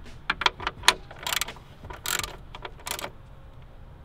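Plastic engine cover being fitted back on over the engine: a quick run of sharp clicks, then three short scraping rattles as it is worked into place.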